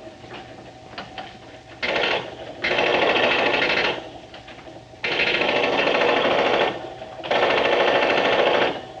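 An arcade machine-gun game rattling in four rapid-fire bursts of a second or so each, with short pauses between; the first burst comes about two seconds in.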